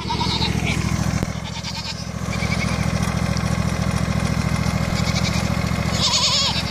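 Riding lawn mower's engine running steadily, with Nigerian Dwarf goats bleating: a short bleat at the start and a louder, wavering one about six seconds in.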